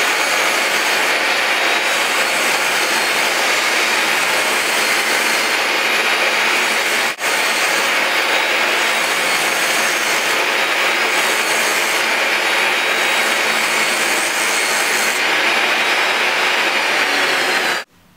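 Bosch table saw running and cutting a sheet of masonite hardboard: a loud, steady whirr with a momentary break about seven seconds in. It stops abruptly just before the end.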